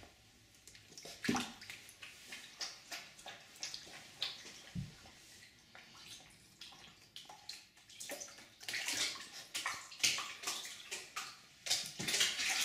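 Husky puppy moving about in a bathtub: irregular light splashing and scrabbling of its paws, with a couple of soft thumps, growing busier in the second half.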